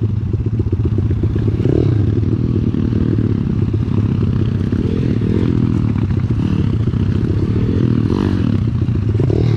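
Small single-cylinder four-stroke pit bike engine running under way on a rough dirt trail, its revs rising and falling every second or two with the throttle. A light clatter from the bike comes with it.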